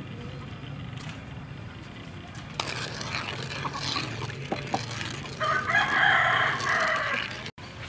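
A rooster crows once, a long call of nearly two seconds starting about five and a half seconds in, the loudest sound here. Before it, a plastic ladle stirs and knocks lightly in a pan of water.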